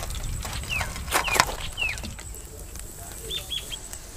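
Birds chirping: a few short falling chirps in the first couple of seconds, then three quick higher notes near the end. A brief clatter comes about a second and a half in.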